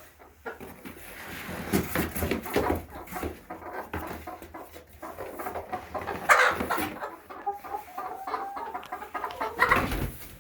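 Chickens clucking and squawking in short calls, mixed with many quick flapping and scuffling noises as they flutter about.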